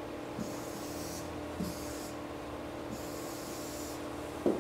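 Pen drawing lines across an interactive whiteboard: three scratchy strokes, the last about a second long, over a steady low hum.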